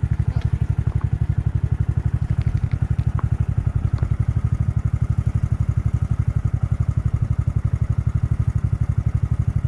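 Engine idling with a steady low pulse of about ten beats a second, with a few light clicks in the first four seconds.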